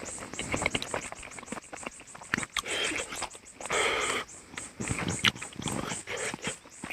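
A person eating chicken curry with rice: irregular chewing, biting and mouth smacks, with a longer wet, noisy sound about four seconds in.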